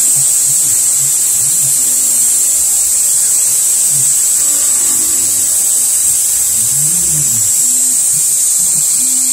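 CNC milling machine cutting the optic pocket into a steel Glock pistol slide with an end mill: a steady high whine and hiss, under which low motor tones repeatedly rise and fall in pitch as the table moves.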